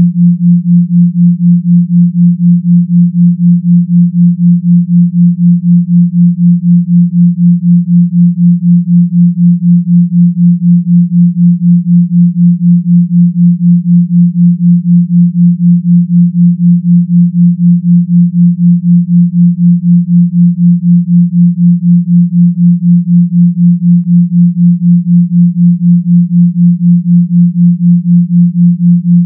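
Binaural-beat pure sine tones at 172 Hz (left) and 176 Hz (right), heard together as one steady low hum near 174 Hz. The hum swells and fades evenly about four times a second: the 4 Hz theta beat between the two tones.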